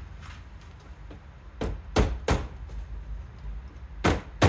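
Sharp knocks on hard plastic interior door trim as the grab handle piece is tugged and worked loose from its clips. There are three knocks about a second and a half in and two more near the end.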